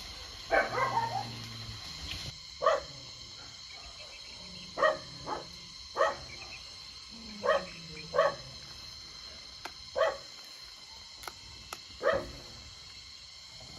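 A dog barking in single, separate barks, about nine spread unevenly over the stretch, with a quick run of them about half a second in.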